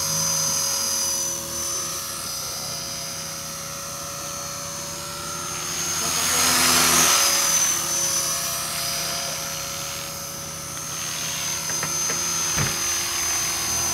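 T-REX HK450 electric RC helicopter in flight: the Turnigy brushless motor and rotors give a steady high whine with rotor-blade swish. The sound swells about six to seven seconds in as the helicopter comes close, then settles back while it hovers.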